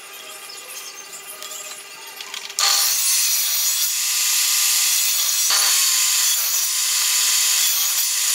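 Table saw running and cutting through pine, a loud steady hiss that comes in suddenly about two and a half seconds in. Before that there is only a quieter hum with light knocks of wood being handled.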